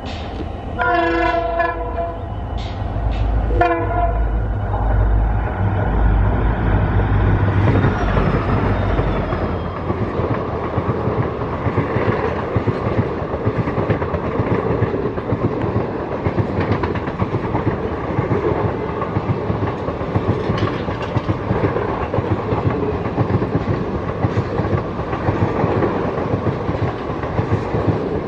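An EMD WDP-4 diesel locomotive sounds its horn as it passes, first a blast of about a second and then a short toot, over the heavy low rumble of its engine. The rumble fades after about nine seconds, and the passenger coaches then roll past with a steady rhythmic clickety-clack of wheels over the rail joints.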